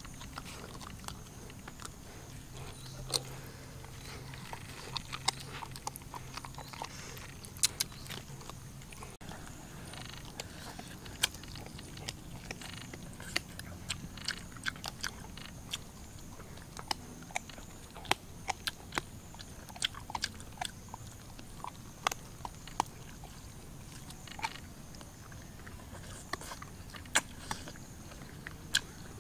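Close-up chewing and biting of cooked chicken on the bone: irregular sharp crunches and smacks scattered throughout, a few of them markedly louder than the rest.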